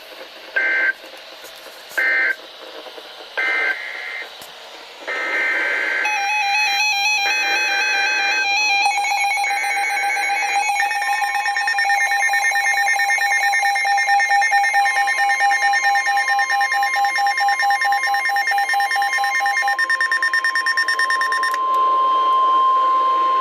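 NOAA Weather Radio Emergency Alert System tones: three short digital data blips, then a long stretch of warbling, buzzy data-burst tones from several overlapping SAME alert headers. In the last third these give way to the steady 1050 Hz weather-radio warning alarm tone.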